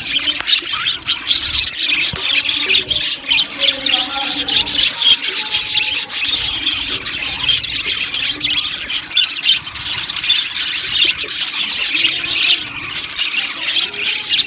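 A flock of budgerigars chattering and chirping together: many overlapping short, high, squeaky calls with no break.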